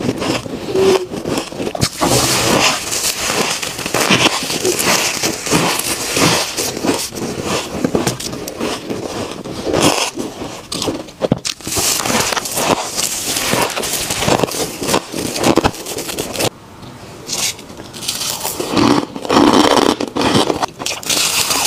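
Close-miked crunching and chewing of soft, powdery freezer frost: a dense run of crisp crackles and scrapes from mouthfuls of packed ice, with a brief lull about three-quarters of the way through.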